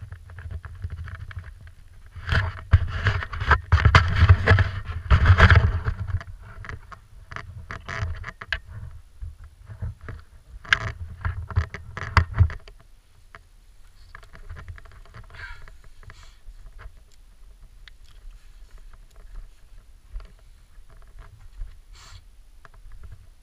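Wind buffeting the microphone in loud, rough gusts, easing about halfway through to a lighter rumble with scattered small clicks and rustles.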